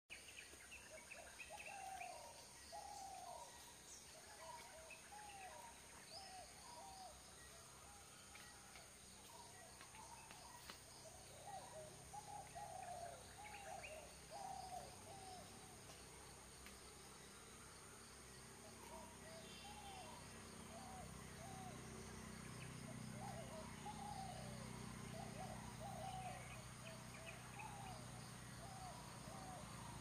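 Faint outdoor ambience: birds giving many short, down-slurred calls in loose clusters, over a steady high-pitched insect drone such as crickets. A low hum in the background grows a little louder about two-thirds of the way in.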